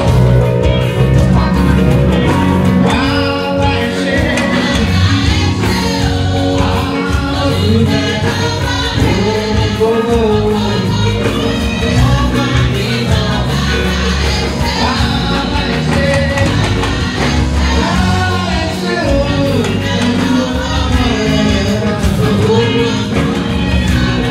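Church choir singing a gospel song through microphones, solo and choir voices together over a steady bass accompaniment.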